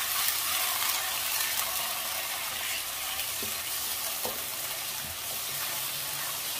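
Browned onions and ginger-garlic paste sizzling in hot oil with a splash of water in a nonstick wok, stirred with a wooden spatula that now and then scrapes the pan. The sizzle is a steady hiss.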